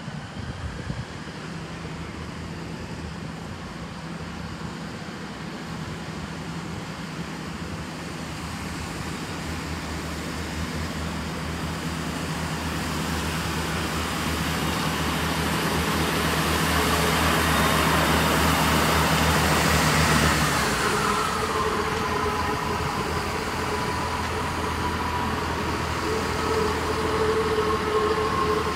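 Diesel multiple unit running through the station: a steady low diesel engine note and wheel noise build as it approaches and are loudest about two-thirds of the way through. As it passes, a whine falls in pitch, then settles into a steady whine.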